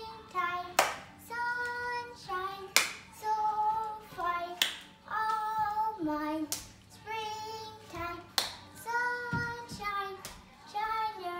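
A young girl singing a cheerful song unaccompanied, in held, stepping notes, with a sharp hand clap every two seconds or so.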